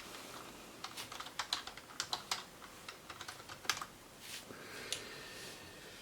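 Typing on a computer keyboard: an irregular run of key clicks starting about a second in and stopping about a second before the end.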